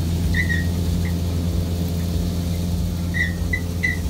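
John Deere 5210 tractor engine running steadily under load, driving a straw chopper that blows chopped wheat straw into the trailer. Short high squeaks sound over the drone, a few in quick succession near the end.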